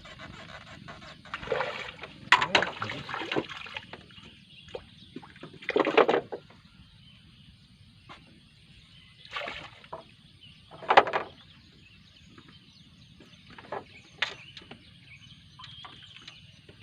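Irregular splashes and sloshes of water, a cluster of them early and then single ones a few seconds apart, with a few sharp knocks near the end.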